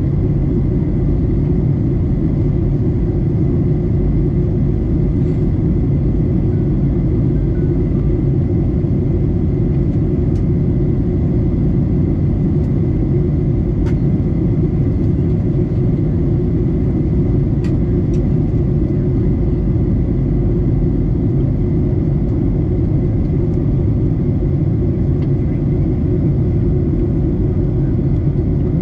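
Steady cabin noise inside a Boeing 737-800 during descent: an even, low rumble from its CFM56-7B turbofan engines and the airflow over the fuselage, with a faint steady high whine.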